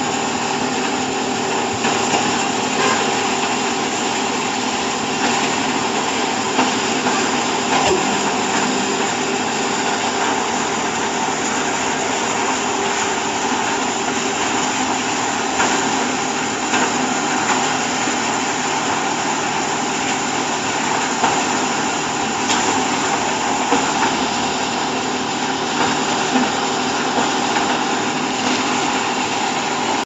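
Hydraulic chopped-hay bagging baler running: its electric motor and hydraulic pump give a steady hum, with occasional light knocks.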